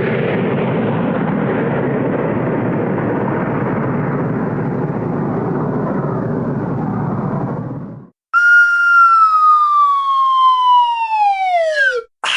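Scratch-library sound-effect samples. A dense, hissy noise runs steadily for about eight seconds and cuts off suddenly. After a short gap comes a single whistle-like tone that slides down in pitch, slowly at first and then faster, like a siren winding down, until it stops abruptly.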